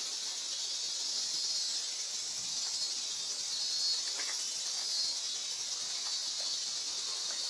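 Steady high-pitched drone of a summer insect chorus, with a few faint ticks about four seconds in.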